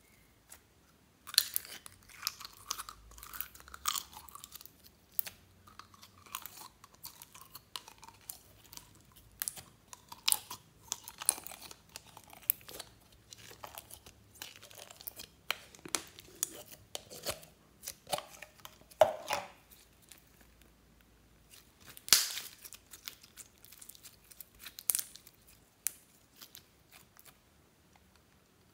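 Clear jelly slime full of beads being squeezed out of a jar onto pink slime: sticky crackling and popping, many small sharp clicks, starting about a second in, with one louder pop past the middle.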